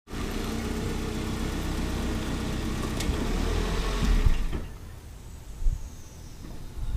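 A steady engine-like hum that cuts off about four and a half seconds in, followed by a single thump.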